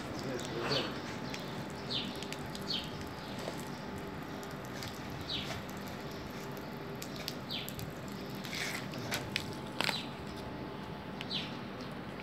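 Short, high chirps of a small bird repeating about once a second, over a steady low hum. A few sharp clicks come late on.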